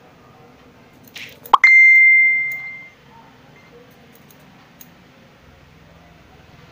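A loud electronic beep about a second and a half in: a quick upward swoop that settles into a steady high tone and fades over about a second. Faint clicks of scissors snipping during the rest.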